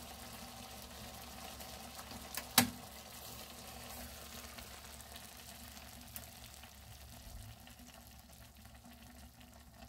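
Small pan of Pacific saury simmering in its sauce: a steady, quiet sizzle and bubbling with fine crackles. A single sharp click stands out about two and a half seconds in.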